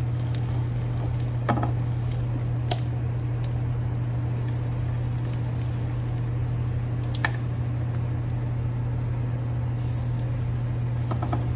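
Blueberry oat pancake batter sizzling in hot butter and oil in a frying pan as spoonfuls are laid in, with a few sharp clicks of the spoon against the pan. A steady low hum runs underneath.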